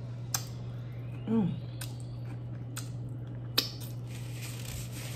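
Close-up eating sounds of sushi being chewed and fingers licked: a few sharp wet mouth clicks, with a short falling 'mm' of enjoyment about a second in. A steady low hum runs underneath.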